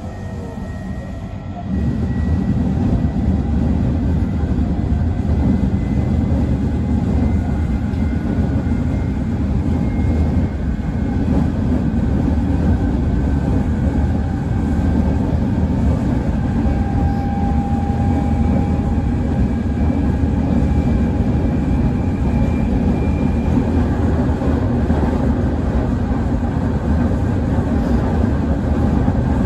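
Semboku 9300 series electric train running at speed: a steady rumble of wheels on rail that suddenly gets louder about two seconds in, with faint whining tones drifting above it.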